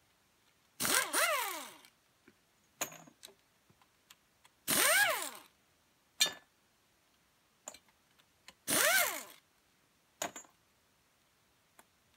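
Impact wrench run on the clutch nut in three bursts of about a second each, roughly four seconds apart, its whine falling in pitch during each burst. Small metal clicks come between the bursts.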